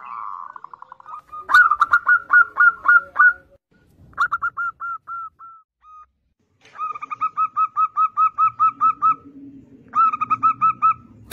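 Zebra dove (perkutut) cooing: several phrases of quick, evenly spaced short notes, about five a second, with brief pauses between the phrases.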